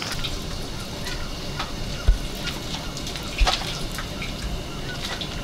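Water dripping from a bamboo sticky-rice steamer basket of freshly rinsed purple sticky rice, as small scattered drips over a steady noise, with two dull thumps about two and three and a half seconds in.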